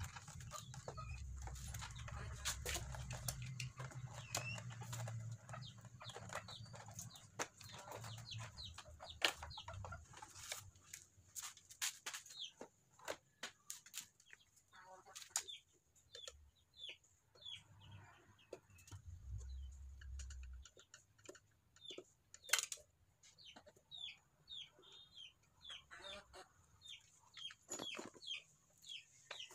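Sharp clicks and knocks of a motorcycle's plastic side fairing being unclipped and handled, with a low rumble in the first ten seconds and again about twenty seconds in. Birds call throughout in short repeated notes, thickest in the second half.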